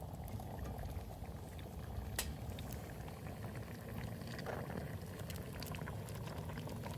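A pot of liquid bubbling at a steady boil, with many small scattered pops and clicks.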